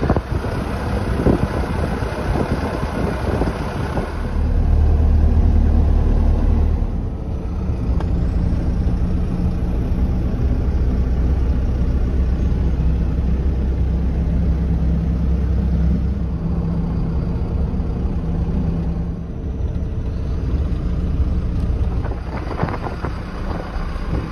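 Expedition motorhome's engine running steadily on the move, with tyre and road noise, heard from inside the cab. The engine hum grows louder about four seconds in and eases off after about nineteen seconds.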